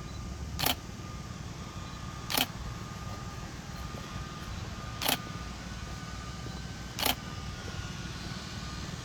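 Four sharp clicks at uneven intervals, about a second in, near two and a half seconds, around five seconds and around seven seconds. A steady low rumble runs underneath.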